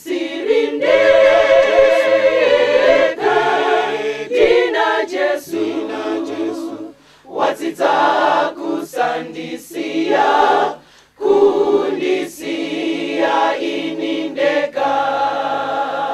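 A choir singing a gospel song, several voices together in phrases with short breaks between them.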